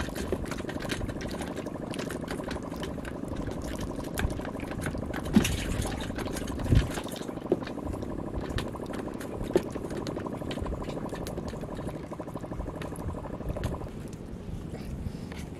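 Water lapping and sloshing against the side of a small wooden boat, with many small clicks and a few sharper knocks about five, seven and nine and a half seconds in.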